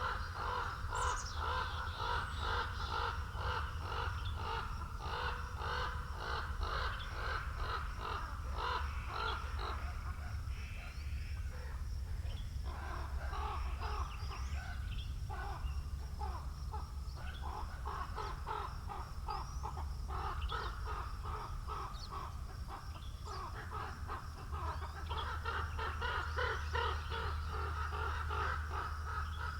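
Many crows cawing continuously, calls overlapping in a dense chorus that thins briefly near the middle, over a steady low rumble of wind.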